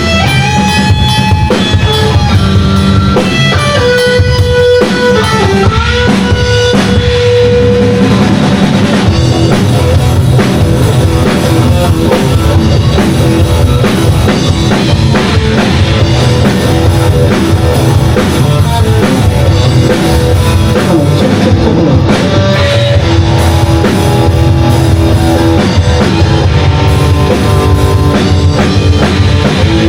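Rock music played on drum kit and guitars, steady and loud, with a held, bending lead melody over the first several seconds.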